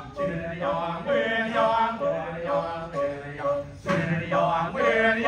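Kecak male chorus chanting in repeated vocal phrases over a steady low sustained note, with short pauses between phrases.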